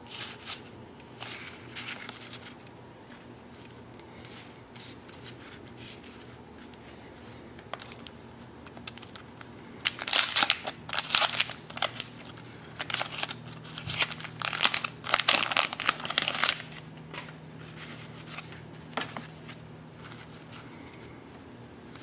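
Wax paper wrapper of a 1990 Donruss baseball card pack crinkling and tearing as it is pulled open by hand, a run of loud crackling bursts lasting several seconds from about halfway through. Fainter rustles of handled cards come before and after.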